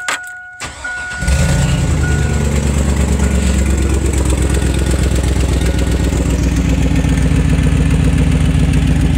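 Pickup truck engine started with the key about a second in, then idling pretty loud through an exhaust leak at a broken weld on the catalytic converter. A dashboard chime beeps steadily over the first couple of seconds.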